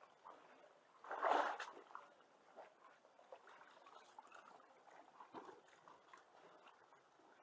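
Sea water lapping and washing against shoreline rocks, faint, with one louder wash about a second in.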